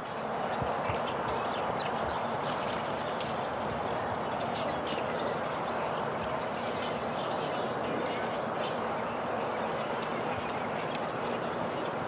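Woodland ambience: a steady rushing background noise with many short, high, thin chirps from small birds scattered throughout.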